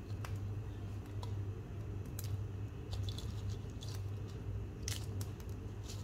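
Whole spices being fried dry in a pan: scattered light clicks and crackles, irregularly spaced, over a steady low hum.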